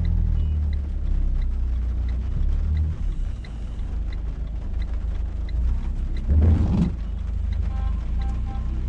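Low, steady engine and road rumble inside a Renault car's cabin as it moves through town traffic, with faint regular ticks. A brief louder sound comes about six and a half seconds in.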